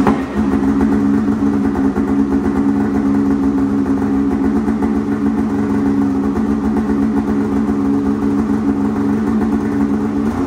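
Polaris Assault Boost snowmobile's turbocharged two-stroke engine idling steadily just after starting. This is its first run after new Vforce reed petals and a billet intake manifold were fitted.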